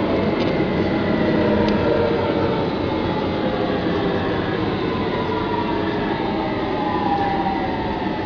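Metro train running through a tunnel: a steady rumble of wheels on rail, with a motor whine that slowly glides downward in pitch.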